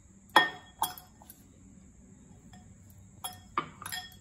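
Glass clinking: a glass container knocks against a glass mixing bowl as grated carrot is tipped in, a sharp clink with a short ring about half a second in and two lighter ones after. A few more clinks against the bowl near the end as the filling is mixed by hand.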